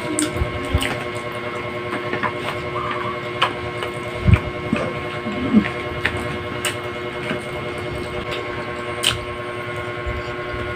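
People eating with their hands: chewing and lip-smacking, with scattered short clicks and a dull thump about four seconds in. A steady electrical hum runs underneath.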